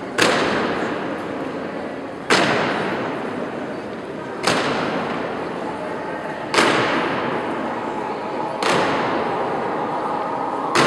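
Soldiers' boots stamping on a stone floor in a slow ceremonial goose-step, one stamp about every two seconds, each echoing long in a large round hall.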